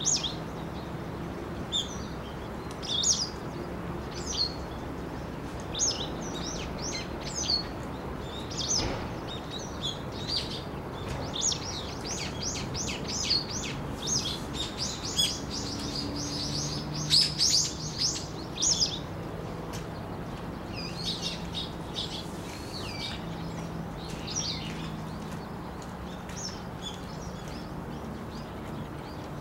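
Small birds chirping and twittering outdoors, short high calls scattered throughout with a quick, dense run of chirps in the middle. A faint steady low hum runs underneath.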